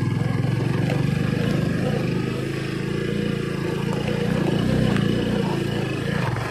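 Motorcycle engine running as the bike rides over a rocky dirt track. The note swells a little about four to five seconds in and drops away near the end.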